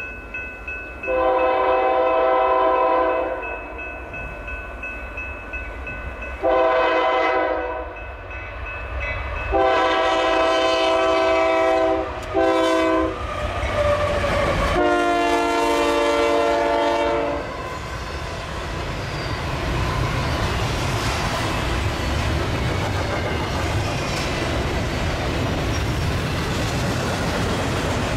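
Union Pacific diesel locomotive horn sounding five blasts, long, shorter, long, short and long, the last one lower in pitch. Then the train rolls past with a steady rumble and the clatter of wheels over the rail joints.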